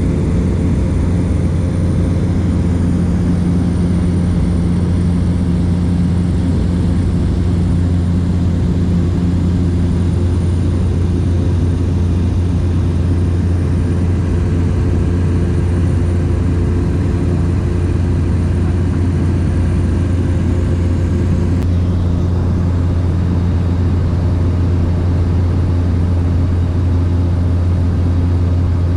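Small propeller aircraft's engine droning steadily in level cruise, heard from inside the cabin: an even low hum with steady overtones and no change in pitch.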